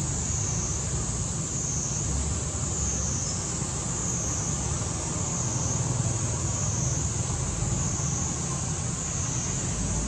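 Outdoor ambience: a steady high insect drone that swells and fades in slow, even waves, over a low rumble of distant road traffic.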